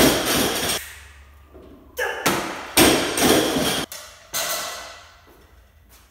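Loaded barbell with bumper plates thudding and clanking: about four heavy impacts, each followed by a metallic rattle, as the bar comes down onto jerk blocks and is handled in lifts.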